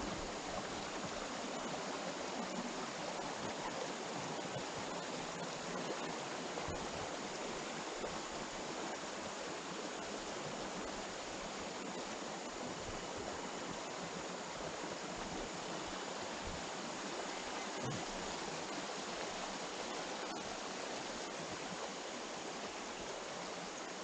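Steady rush of water from a flowing stream.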